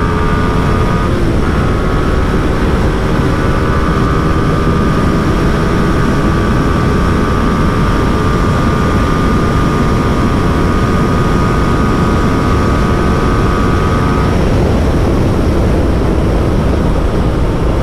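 Yamaha R15 V3's single-cylinder engine running at steady high speed, about 120 km/h, under a heavy rush of wind on the rider-mounted microphone. Its faint whining note fades about fourteen seconds in.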